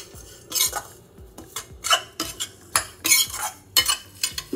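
A spatula stirring and scraping seeds (pumpkin, flax, white sesame) around a stainless steel kadhai, in quick, uneven strokes about two a second.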